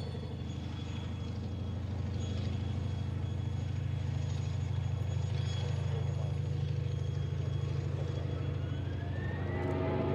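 Aircraft engine noise slowly growing louder: a steady low hum, joined near the end by a rising whine as it gets louder still.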